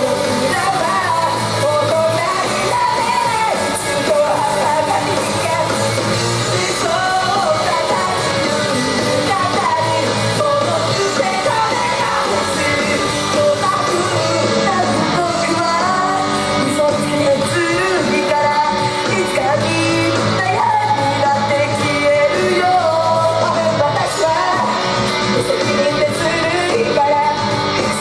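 Female idol group singing live into handheld microphones over loud pop-rock music.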